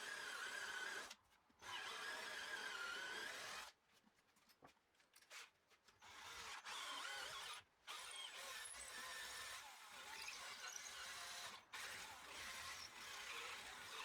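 Faint power drill whining at a wavering pitch as it drives threaded inserts into wood, in several stretches broken by abrupt cuts.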